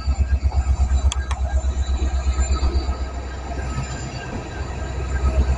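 Passenger train running, heard from on board: a loud low rumble that pulses rapidly and eases after about three seconds, with two sharp clicks about a second in.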